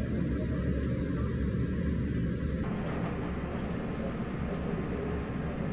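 Steady low rumbling background noise with faint voices mixed in, a restaurant's room ambience. Its tone changes abruptly about two and a half seconds in.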